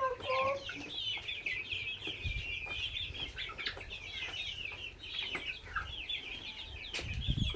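A flock of chickens cheeping and clucking together in a steady, high-pitched chorus of short calls. A sharp knock and low thump come near the end.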